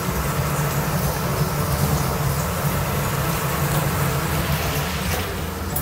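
Steady mechanical hum, like a kitchen fan, over a light, even sizzle of fried fish pieces and onion masala cooking in oil in a non-stick pan.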